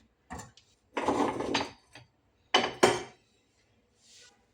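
Kitchen items being handled: a short clatter lasting over half a second, then two sharp knocks in quick succession, which are the loudest sounds.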